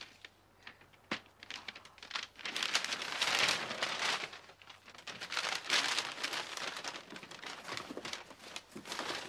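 Brown wrapping paper being torn open and crumpled by hand as a parcel is unwrapped, in irregular rustling bursts. It starts with a few small clicks and is loudest a few seconds in.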